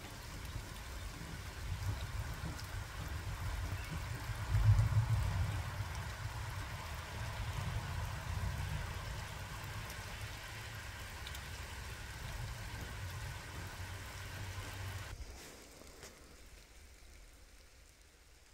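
Steady rain falling on wet ground and leaves, with a low rumble underneath that swells briefly about five seconds in. The sound cuts off about fifteen seconds in to near quiet.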